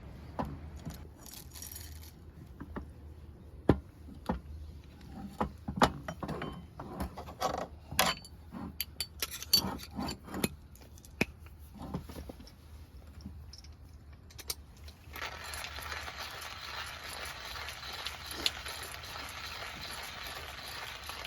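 Scattered clinks, clatters and knocks of small hard objects being handled, then about fifteen seconds in a steady hiss starts and holds.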